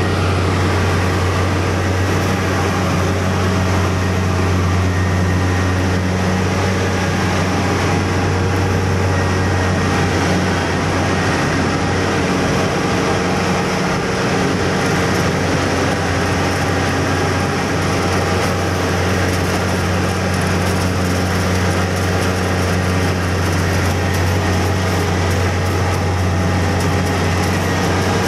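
Kubota DC-70 Plus combine harvester running steadily while cutting rice: a constant diesel engine drone together with the cutter and threshing machinery, heard close up from the operator's seat.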